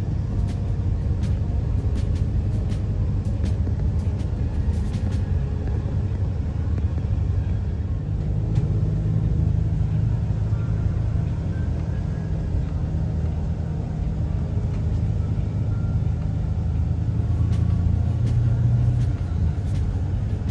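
Coach engine and tyre rumble heard from inside the cabin of a moving bus: a steady low drone.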